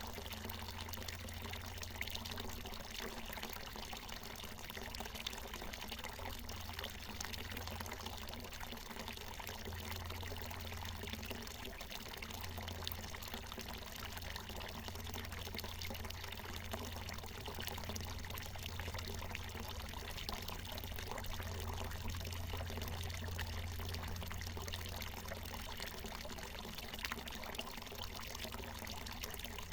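Water from a natural mountain spring pouring and splashing in a steady, unbroken stream.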